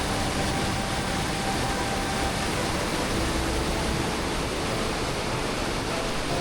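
A waterfall in a mountain gorge, its falling water making a steady, even rush.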